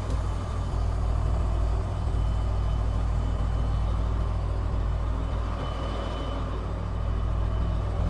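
Sinotruk Howo tractor truck's diesel engine running steadily with a low, even rumble.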